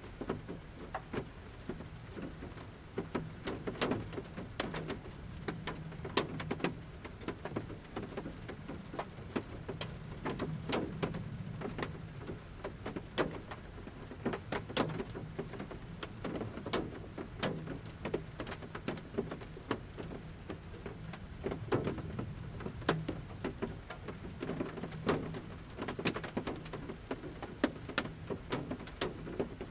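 Large raindrops falling from the forest canopy onto a camper van's roof, striking at irregular intervals over a steady light rain, heard from inside the van.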